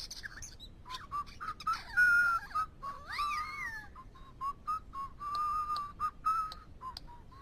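A bird whistling a series of short, clear notes at much the same pitch, with a wavering rise and fall about three seconds in and a longer held note near the end.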